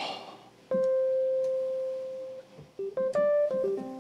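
Nord Stage digital keyboard being played: one held note, then a quick run of short notes about three seconds in. It sounds quiet because the broken expression pedal keeps the volume down.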